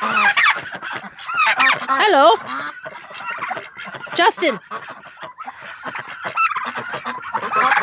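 A flock of farmyard poultry calling over one another, with many loud honking calls.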